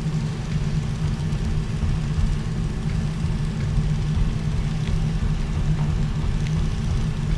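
Steady low hum and rumble of running arthroscopy equipment, with a few faint clicks here and there.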